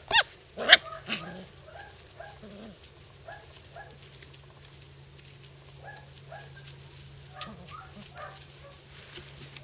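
Five-week-old puppies play-fighting: two sharp, high yelps in the first second, then many short, soft yips and squeaks scattered through the rest, over a steady low hum.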